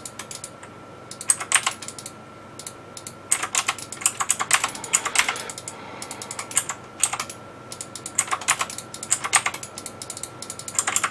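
Computer keyboard typing in several short bursts of quick keystrokes with pauses between them, as short commands are typed in.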